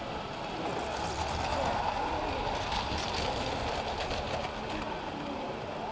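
Hornby Dublo OO-gauge model train running on metal track, its wheels rumbling with rapid clicks. It grows louder as it passes close by, from about a second in to about four and a half seconds in.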